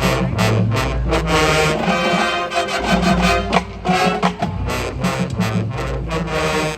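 High school marching band playing its field show: full brass over drums, with sustained chords and steady percussion hits.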